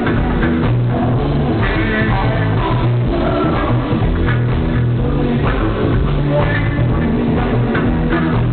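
Live band playing rock/funk music, with bass and drums and a woman singing.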